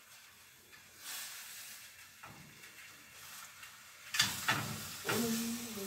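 Pieces of fish tail sizzling as they are laid into a hot frying pan, a steady hiss with sharp knocks of the pan and fish about four seconds in and again near the end.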